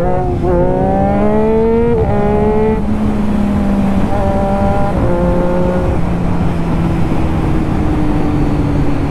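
Sport motorcycle engine pulling away and accelerating: its pitch rises for about two seconds, drops at a gear change, then climbs and drops again around the middle before settling into a steady cruise.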